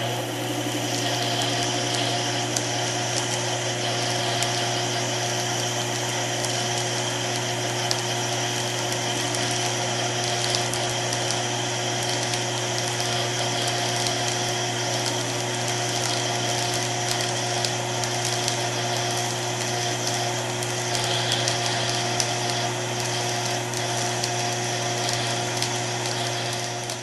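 Sherline Series 4400 benchtop lathe running at 800 RPM while a 1/4-inch high-speed steel tool takes a dry .050-inch cut on a 5/8-inch brass bar. A steady motor hum with a few higher steady tones, over the even hiss of the cut, with scattered small ticks.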